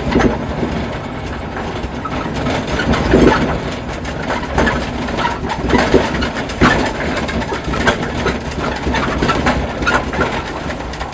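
Moving pickup-truck taxi (songthaew) heard from its open-sided rear passenger compartment: engine and road noise with wind on the microphone, and irregular rattles and knocks from the vehicle's frame.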